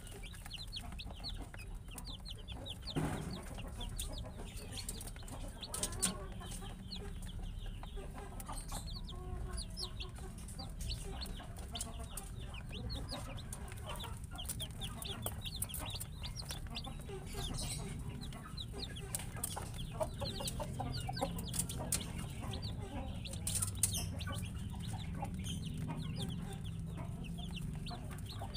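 A group of baby chicks peeping continuously, many short, high, falling cheeps overlapping one another, with occasional sharp clicks.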